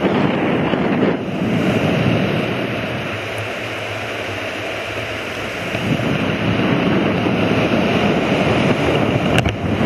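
Rushing air buffeting a microphone swinging at speed on a canyon swing rope, a steady roar that eases a little mid-way and builds again, with a couple of sharp clicks near the end.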